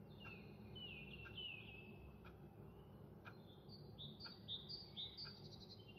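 Near silence with faint birds chirping: a few high descending chirps in the first two seconds, then a run of short, quickly repeated high notes in the middle. Faint soft clicks about once a second run underneath.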